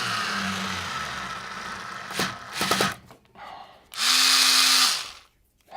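A 3.6 V cordless screwdriver motor whirring for about two seconds, its pitch dropping at the start. A few sharp clicks follow, then a second, shorter run of about a second at a steady pitch.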